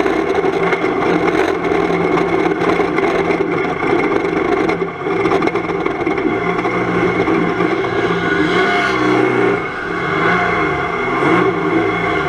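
Race-prepared Volvo 240 estate's engine heard from inside the stripped cabin, running hard under load. About halfway through, the revs begin rising and falling over and over as the car is driven round the track.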